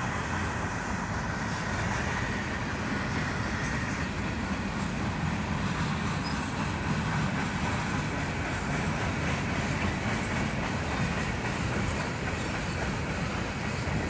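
Freight cars of a passing CN freight train rolling by: a steady rumble of steel wheels on rail.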